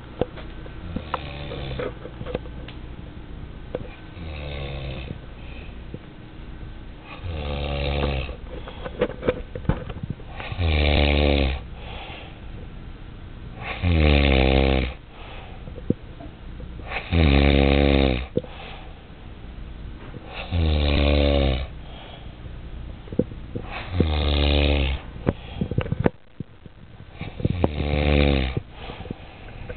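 A sleeping man snoring deeply and regularly, one long snore on each breath about every three to four seconds. The snores grow louder about ten seconds in.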